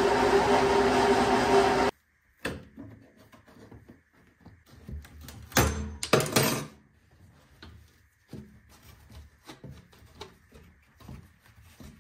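A loud steady rushing noise with a hum cuts off abruptly about two seconds in. Then come scattered knocks, clicks and scrapes of plastic interior trim panels and their clips being worked loose, loudest in a couple of rasping pulls a little past the middle.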